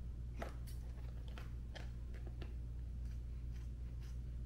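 Scissors snipping through a thin flexible plastic cutting board to round off its corners: several short, sharp snips at irregular intervals, over a steady low hum.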